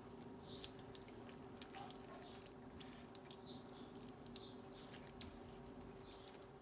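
Faint wet dabbing and squishing of a silicone basting brush spreading barbecue sauce over chicken thighs in a frying pan, with scattered soft ticks, over a steady low hum.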